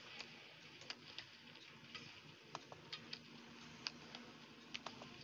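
Badminton rackets striking a shuttlecock back and forth in a rally: sharp clicks roughly a second apart, over a faint steady arena hum.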